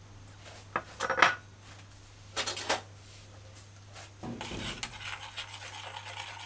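A spoon clinking sharply against a glass measuring jug a few times, then, from about four seconds in, stirring a liquid mixture of egg, water and coconut milk powder in the jug.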